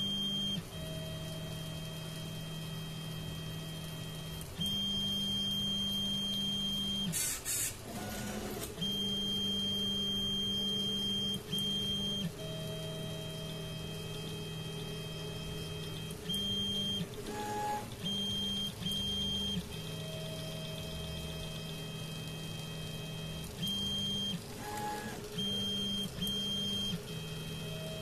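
Home-built 3D printer running a print, its stepper motors whining in steady tones that switch pitch every second or so as the head and bed move, with a few brief sweeps among them.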